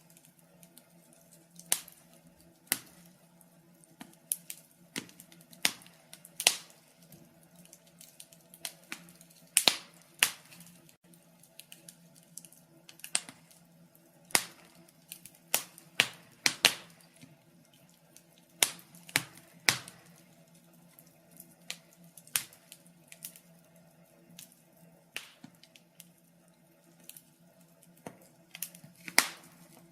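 Wood fire crackling: irregular sharp pops and snaps, some much louder than others, bunched more closely around a third and a half of the way in.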